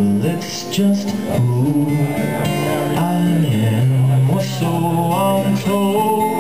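Live acoustic guitar strummed steadily, with held notes of a melody line stepping up and down in pitch over it.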